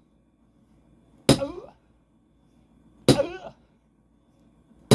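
An axe striking the back of a second axe that is wedged into a thick pine round, a sharp metal-on-metal clang three times, about two seconds apart, as the wedged axe is driven in to split the log. Each blow comes with a short shout from the man swinging.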